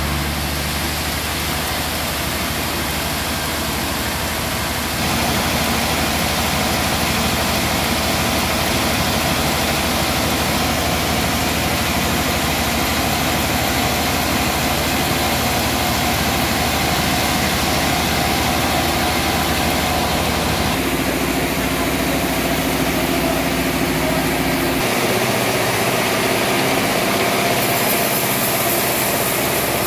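Large band sawmill running steadily as its blade saws lengthwise through a big trembesi (rain tree) log. The noise grows louder about five seconds in.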